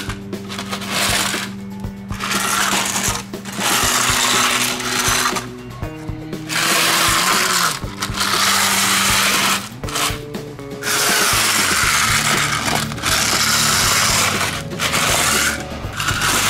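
Small toy cars pushed by hand through loose gravel, the stones crunching and rattling under them in stretches of one to two seconds with short pauses between. Background music with steady held notes plays underneath.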